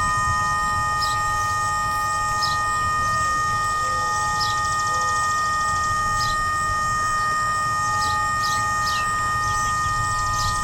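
Whelen WPS-3016 electronic warning siren putting out a steady buzz of several held tones instead of its test signal, a sign the siren is malfunctioning; the owner guesses it could not rotate to its set position. Low wind rumble and short high chirps sound under it.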